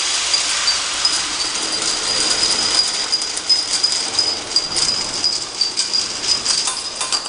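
Automatic vial labeling machine running: a steady mechanical noise with a constant high whine, and small glass vials clicking and rattling along the roller conveyor, the clicks growing denser after the first couple of seconds.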